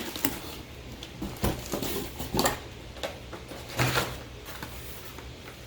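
Items from a product bundle being handled and unpacked: a few soft knocks and rustles of packaging, spaced about a second apart.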